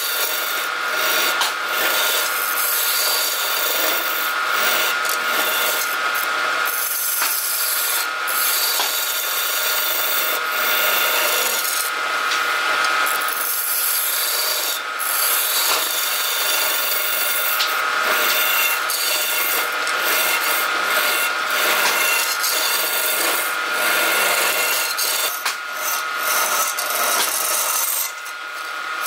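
A steel hollowing tool cutting and scraping inside a vase spinning on a wood lathe: a continuous rasping scrape of steel on wood that swells and eases as the tool moves, over a steady high tone.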